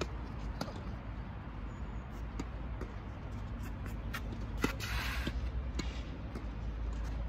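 Tennis rally on a hard court: a string of sharp pops from rackets striking the ball and the ball bouncing, the loudest hit about four and a half seconds in, followed by a brief shoe scuff, over a steady low rumble.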